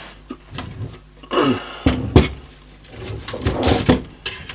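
Scattered clicks and knocks of modular power-supply cables and their plastic connectors being handled, with the sharpest knocks about two seconds in and a cluster near the end.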